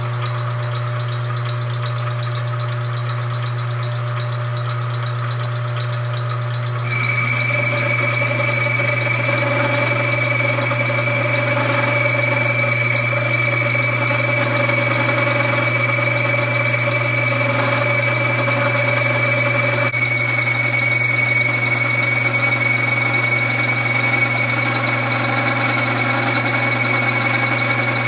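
G0704 benchtop milling machine running while machining an aluminium block, with a steady low hum. About seven seconds in it gets louder and a steady high whine joins.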